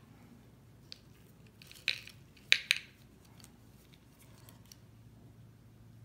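A few sharp clicks and taps from handling a water test strip at a glass mason jar with a gloved hand: one light tick, then three sharp clicks close together around the middle.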